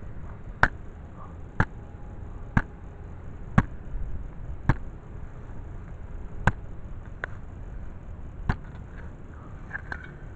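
A hand digger stabbing into turf to cut a plug over a metal-detector target: about eight sharp chops, roughly one a second.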